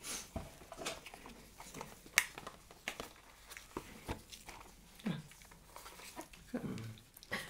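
Hands handling unboxing packaging and a booklet: scattered light clicks and soft rustles of paper and plastic. Two brief low vocal sounds fall in pitch, about five seconds in and again near the end.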